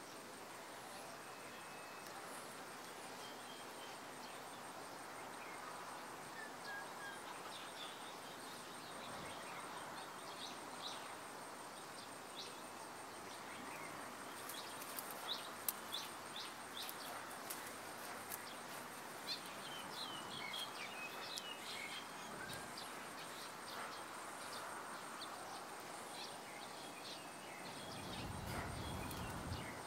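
Garden ambience: small birds chirping in many short, high calls, thickest in the middle, over a steady hiss with a thin, constant high-pitched tone like an insect's. A low rumble comes in near the end.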